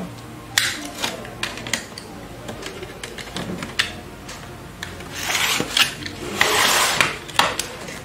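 A pry tool scraping and levering along the seam of a Lenovo ThinkPad T470s base cover to unclip it. A few sharp clicks come first, then two longer rasping scrapes in the second half.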